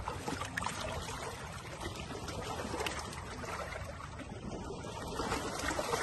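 Small lake waves lapping and trickling in a steady wash, over a low rumble.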